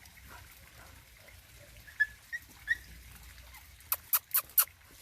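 Dog digging at an animal burrow: faint scratching in the dirt, three short high squeaks about two seconds in, then four quick sharp scrapes near the end.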